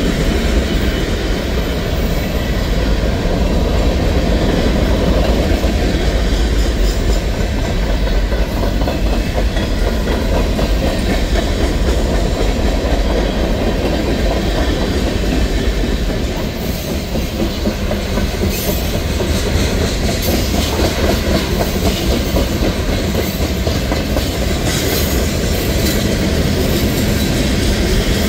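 Tank cars and covered hoppers of a freight train rolling past close by: a steady, loud rumble and rattle of steel wheels on the rails.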